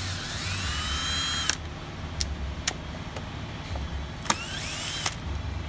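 Cordless drill/driver backing screws out of a plastic cover: two short runs, each rising in pitch as the motor spins up, the first about a second and a half long and the second shorter, near the end, with a few small clicks between.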